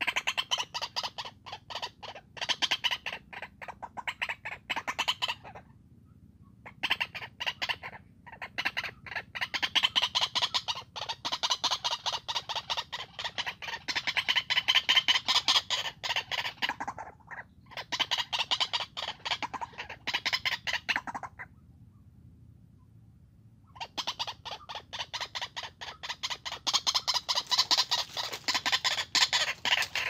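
White-breasted waterhens calling: bouts of fast, harsh, repeated notes lasting several seconds each, broken by short pauses, with a longer pause of about two and a half seconds about three quarters of the way through.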